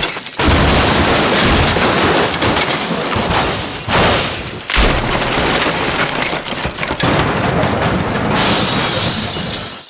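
A run of designed crash sound effects, one after another with hardly a gap: heavy smashing impacts with breaking and shattering glass and booms. A sharp hit stands out about a third of a second in and another just before five seconds.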